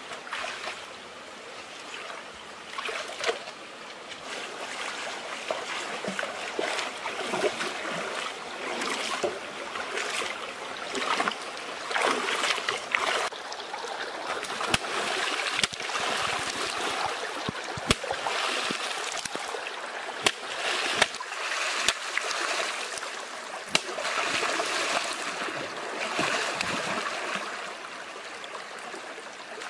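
Shallow rocky stream running, with splashing as someone wades and works in the water, and scattered sharp knocks in the second half.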